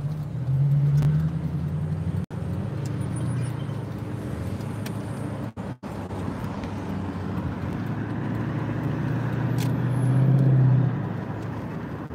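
Car engine and road noise heard from inside a moving car, a steady low hum that swells briefly near the start and again near the end.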